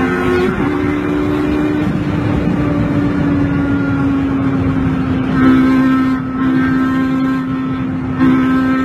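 Sports car engine running at a steady high pitch, swelling louder about five and a half seconds in and again near the end.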